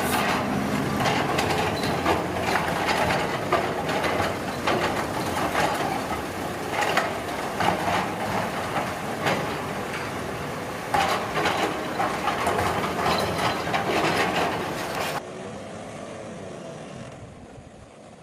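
Heavy construction machinery running loudly, with repeated knocks and metallic clanks over a steady engine drone. A little after halfway the sound cuts abruptly to a quieter, steadier engine sound.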